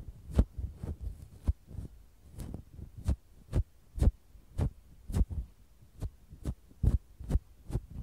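ASMR ear-cleaning sounds: wooden ear picks and a fluffy down-tipped ear pick brushing and scraping right at the microphone in short, separate strokes, about two a second, each with a soft low thump.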